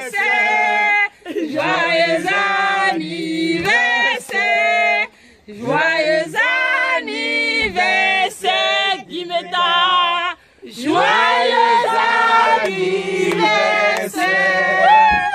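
A group of men and women singing a birthday song together in unison, in several phrases with short breaths between them.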